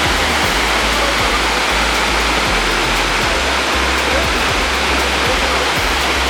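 Waterfall rushing, a steady hiss of falling water, with background music underneath.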